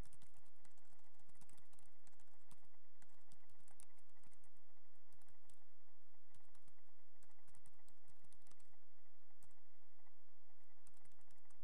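Typing on a computer keyboard: irregular runs of key clicks with brief pauses between them.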